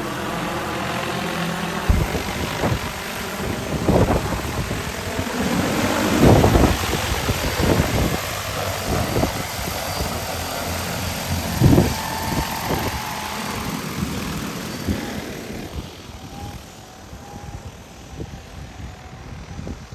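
Multirotor rotors of a DJI Agras T40 agricultural spray drone flying overhead: a steady, dense whirring rush broken by several rough buffeting thumps. The sound grows fainter over the last few seconds as the drone works farther off over the field.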